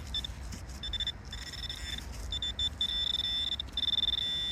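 Metal-detecting pinpointer giving a high, steady tone, first in short on-off beeps, then in longer stretches and almost continuously near the end as it closes in on a small buried metal target. A low rumble lies underneath.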